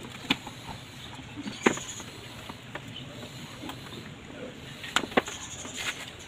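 Scattered clicks and knocks of plastic and rubber parts being handled as a car's air intake hose and air filter housing are worked loose. There is one sharp knock about a second and a half in, and two more close together near the end.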